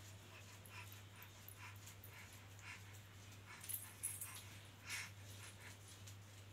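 Near silence: a steady low hum with a few faint, short squeaks and soft clicks scattered through it.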